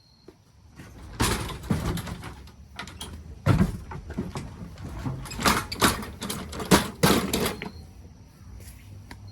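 Clattering and knocking of hard objects being handled, a busy run of sharp knocks and rattles for several seconds that dies down near the end.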